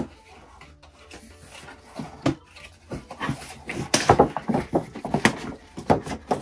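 Cardboard toy packaging being handled and opened: a run of irregular rustles, scrapes and knocks as the box flap is pulled open and the box is tipped over, starting about two seconds in.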